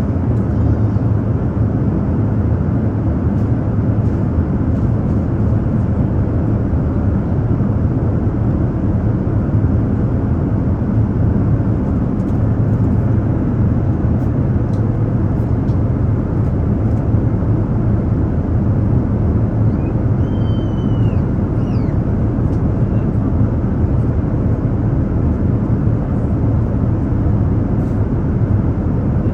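Airliner cabin noise in flight: a steady, unchanging low drone of engines and rushing air, heard from inside the cabin.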